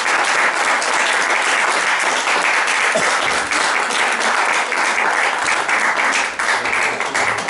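Audience applauding, a dense, steady crowd of hand claps.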